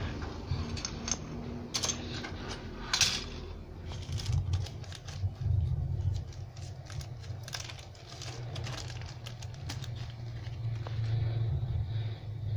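Injection-moulded plastic model-kit sprues being handled and set down: irregular light plastic clicks and clatter over a low steady hum.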